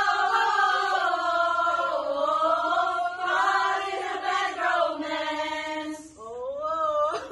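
A group of women singing together unaccompanied, holding long notes that slowly slide in pitch. Near the end the group drops away and a single wavering voice carries on.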